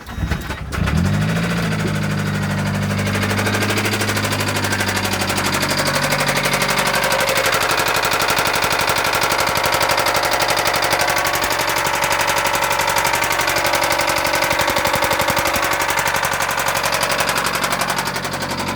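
2005 Mazdaspeed Miata's turbocharged 1.8-litre four-cylinder engine starting about a second in, then idling with a rapid, steady knock: rod knock.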